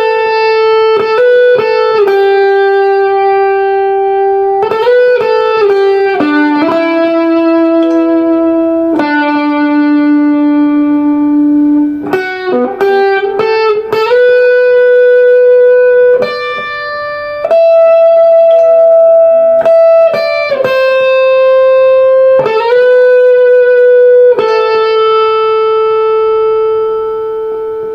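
Epiphone electric guitar, freshly refretted, played through overdrive: a slow lead melody of single notes, each held for a long sustain, with bends and slides between them.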